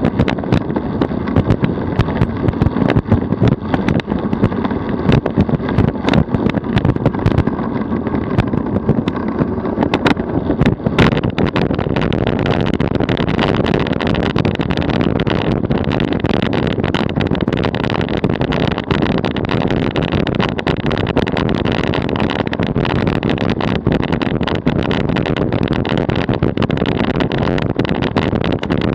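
DF velomobile rolling at about 43 km/h: steady tyre and road rumble carried through its carbon-fibre shell. Many sharp clicks and knocks run through the first ten seconds or so, then the noise settles into an even rumble.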